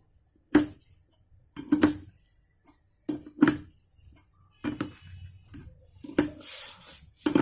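Hammer blows on metal parts of a Hyundai Santro manual gearbox being reassembled: about nine sharp metallic strikes, roughly one a second and some in quick pairs, each ringing briefly.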